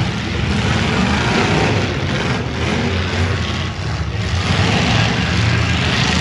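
V8 engines of demolition derby cars running: a loud, steady low rumble with a rushing hiss above it.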